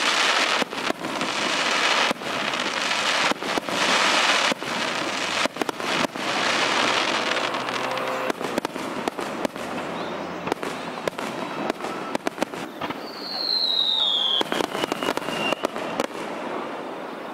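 Fireworks display: aerial shells bursting in repeated sharp bangs, with dense crackling between them. About two thirds of the way through, a high whistle falls in pitch.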